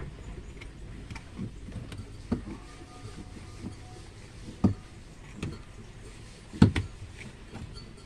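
Scattered knocks and clunks of hands working on a washing machine's drive pulley and belt under the tub, three standing out and the loudest about two-thirds of the way through, over a low steady hum.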